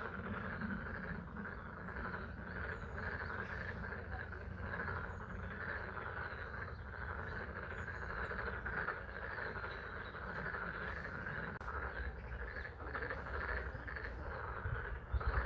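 A chorus of frogs calling steadily at a pond, over the even patter of spring rain, with a few low knocks near the end.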